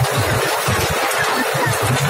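Small park toy train running along its track, heard from a carriage: a steady rolling noise with an uneven low rumble.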